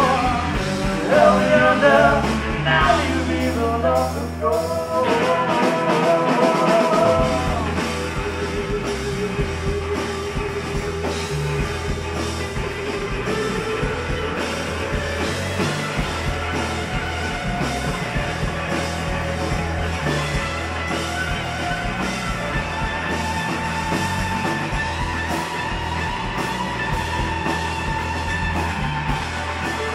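Live rock band playing, with electric guitars, bass and drum kit. A woman sings over the first several seconds, then the band carries on instrumentally.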